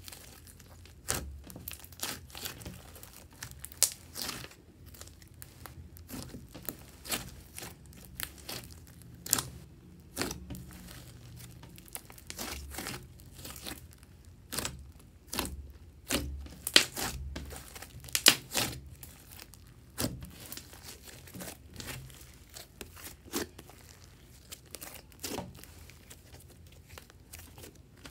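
Hands kneading, squeezing and stretching a large glossy slime, making irregular sticky pops, crackles and tearing sounds as it is folded and pulled apart. A few sharper pops come about two-thirds of the way through.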